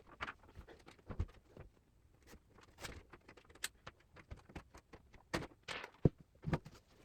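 Scattered light clicks and knocks from a PC case being handled and turned, with a few louder knocks in the second half.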